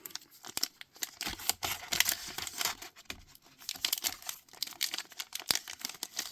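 Card booster pack wrapper being crinkled and pulled at as someone tries to tear it open, an irregular run of crackles and rustles; the pack is hard to open.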